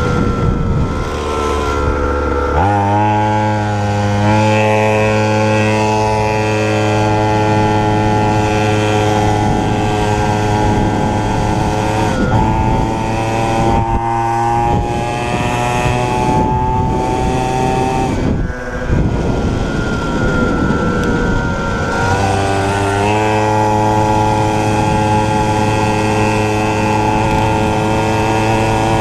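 A 49cc two-stroke mini cross bike engine runs at high revs while the bike is ridden, its pitch holding steady and creeping slowly upward. The revs jump up about two seconds in, then dip twice, about twelve seconds in and again around eighteen to twenty-two seconds, before picking back up.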